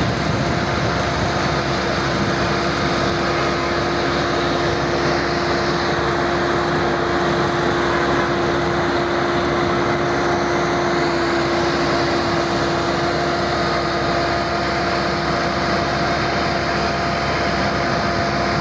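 Road roller's diesel engine running steadily, with an unbroken droning hum.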